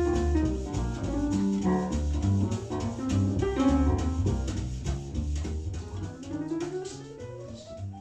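Jazz played through Edifier S2000MK3 active bookshelf speakers in a room, with a steady bass line under busy melodic notes. A rising slide comes in near the end as the music fades.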